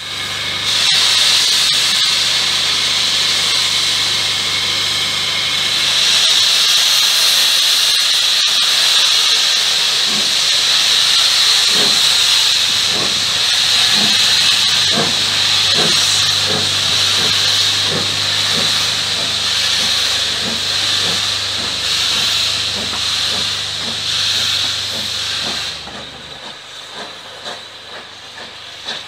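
WD Austerity 2-10-0 steam locomotive setting off with a train: a loud steady hiss of steam blowing from its open cylinder drain cocks, with slow exhaust chuffs starting about ten seconds in and gradually quickening. The hiss cuts off near the end, leaving the quieter rumble and clatter of the coaches rolling past.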